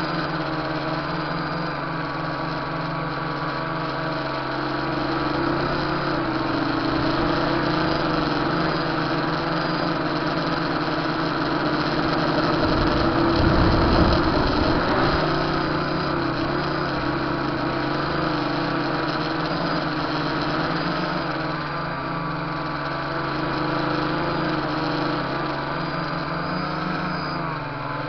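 Tricopter's three electric motors and propellers buzzing steadily in flight, the pitch wavering slightly with throttle changes. About halfway through it gets louder for a couple of seconds, with a low rumble.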